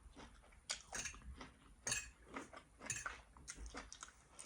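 Close-miked chewing of a mouthful of fried rice: soft wet mouth sounds with a few sharp smacks spaced about a second apart.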